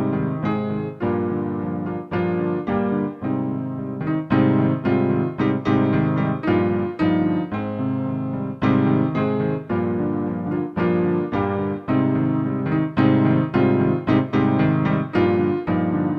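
Background piano music: a slow piece of struck notes and chords, each ringing and fading before the next.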